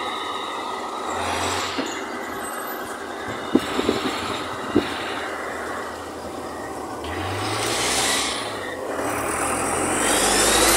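Road vehicles passing by, the sound swelling and fading twice, the second time with a rising whine near the end. A few sharp knocks about four seconds in, from a wooden board being fitted against a metal stove frame.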